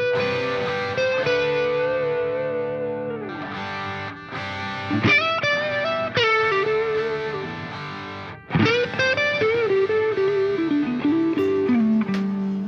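Background music: a distorted electric guitar playing a lead line with bending notes.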